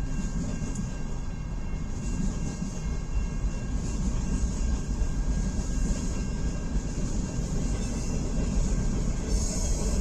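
Freight cars of a long, heavy CN mixed freight train rolling past close by: a steady rumble of steel wheels on rail.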